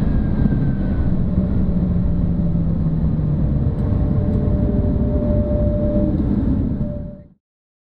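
2006 Ford GT with its supercharged 5.4-litre V8 slowing under braking from about 105 to 55 mph: a steady rush of drivetrain, tyre and wind noise, with tones that slowly fall in pitch as the speed drops. The sound fades and cuts off suddenly about seven seconds in.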